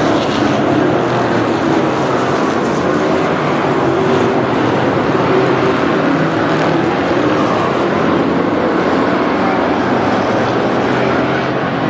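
A pack of Thunder Car stock cars racing around a short oval, many engines running together in a loud, steady blend.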